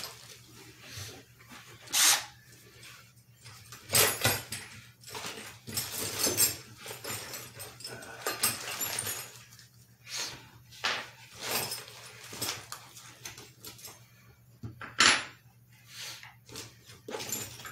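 Wooden bed-frame parts handled during assembly: irregular knocks, clicks and rattles, with a few sharp knocks, about 2, 4 and 15 seconds in.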